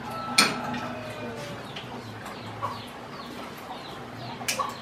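A sharp clatter of metal cookware about half a second in, then a few lighter knocks near the end. Birds call faintly in the background.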